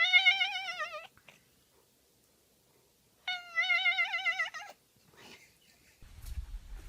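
Domestic cat giving two long, wavering meows, the second about three seconds after the first.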